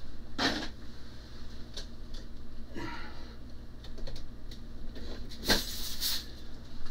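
Small plastic parts-storage drawers being pulled out and rummaged through: a few short scrapes and clatters, the longest and loudest near the end.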